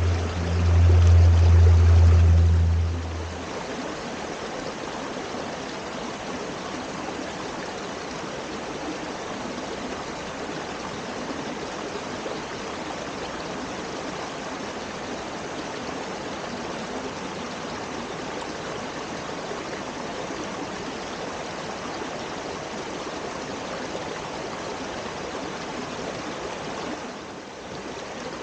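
Mountain stream flowing steadily with an even rush of water. A loud, low, steady hum sounds over it for the first three seconds and then stops.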